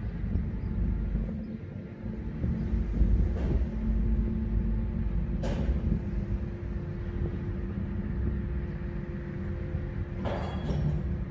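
Railway carriages being shunted aboard a train ferry: a low rumble under a steady hum, with three sharp metallic knocks spread through it.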